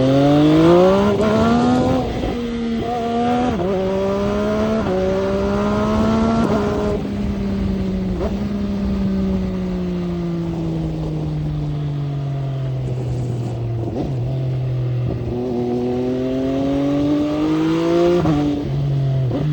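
MV Agusta Brutale 800 three-cylinder engine pulling hard through the gears, its pitch climbing and dropping back at each upshift about 2, 3.5 and 7 seconds in. It then eases off with the pitch sliding down for several seconds, and accelerates again through two more quick upshifts near the end.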